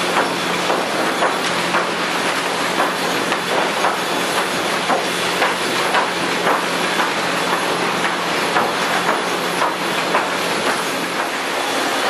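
Sawmill chain transfer conveyors running with sawn wooden boards on them: a steady machine din over a constant low hum, with sharp clattering knocks about twice a second.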